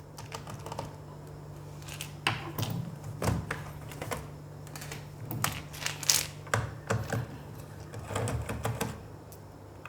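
Irregular small clicks and taps of hands and a screwdriver on a Dell laptop's plastic case as its screws are undone, over a steady low hum.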